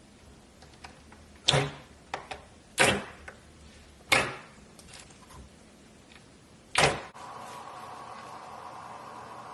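Slime being squeezed and pressed by hand, giving four loud, sharp squishy pops with fainter clicks between them. About seven seconds in these stop abruptly and a steady hum takes over.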